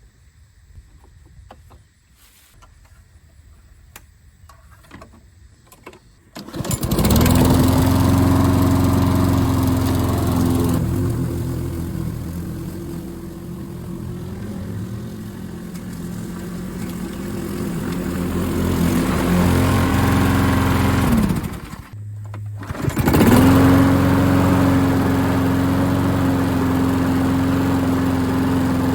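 A few faint clicks, then a gasoline lawn mower engine starts about six seconds in and runs steadily. After about fifteen seconds it winds down and stops, and about a second and a half later it is started again and runs on.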